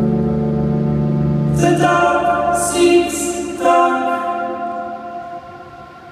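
Recorded song playing: slow layered singing over held chords, with a low pulsing bass that drops out about two seconds in. Two new chord swells come in, about two and four seconds in, and the music then fades down toward the end.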